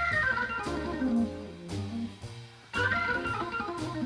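Instrumental background music: a tune with a descending melody over a stepping bass line and drum hits.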